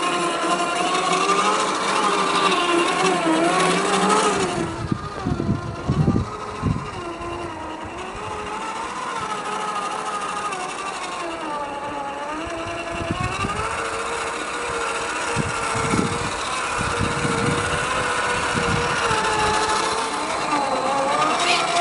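A 1/10-scale RC crawler's electric motor and gearbox whining, the pitch rising and falling as the throttle is worked. Irregular low thumps come about 5 to 7 seconds in and again from about 15 to 19 seconds in.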